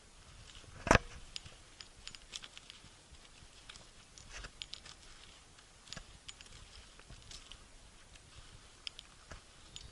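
Footsteps crunching on loose, rocky ground, with scattered small clicks and one sharper knock about a second in, over a faint steady hiss.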